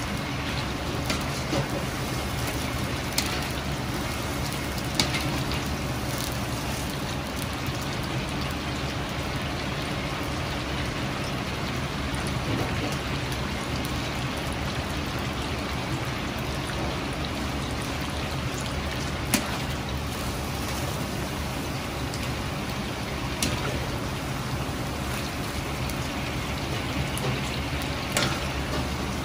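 Chicken karaage deep-frying in a large wok of hot oil: a steady, dense sizzle and crackle of bubbling oil, with a steady low hum underneath and a few sharp clicks, the loudest about two-thirds of the way through.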